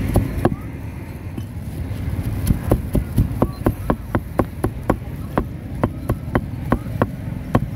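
Meat cleaver chopping grilled pig head meat on a round chopping block. There are a couple of sharp knocks at first, then a quick run of chops, about five a second, from about two and a half seconds in, slowing to a more spaced beat near the end. A steady low rumble runs underneath.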